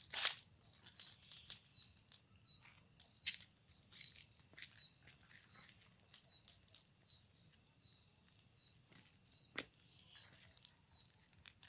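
Bonfire crackling, with scattered sharp pops from the burning wood, the loudest just after the start and again near the end. Underneath, crickets chirp steadily in a fast, high pulsing trill.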